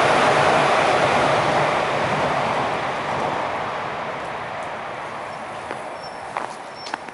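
A passing vehicle's rumble, loud at first and fading away steadily over several seconds as it recedes. A couple of short clicks sound near the end.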